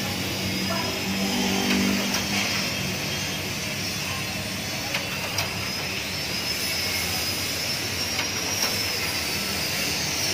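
Coffee roaster's cooling-bin fan and stirring arm running steadily, a steady rushing noise with a thin high whine that drifts slightly in pitch. Roasted coffee beans spill through the discharge chute into a metal tray, with a few sharp clicks.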